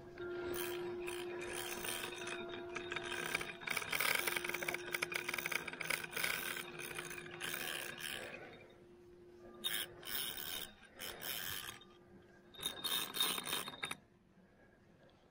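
Big-pit carp spinning reel being cranked while playing a hooked carp: a continuous mechanical rasp and whir of the reel's gears and line, which breaks into shorter spurts of winding in the second half. A steady hum runs underneath until near the end.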